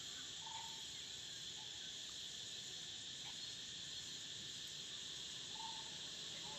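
Steady, high-pitched drone of an insect chorus, with two brief faint calls, one about half a second in and one near the end.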